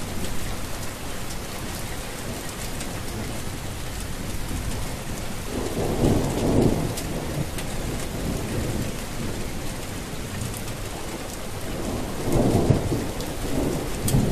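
Steady heavy rain, with two rolls of thunder, one about six seconds in and another near the end.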